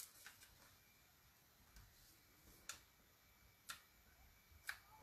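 Near silence with about five faint, short clicks roughly a second apart: a craft tool and small paper pieces being handled on a craft mat and an adhesive sheet.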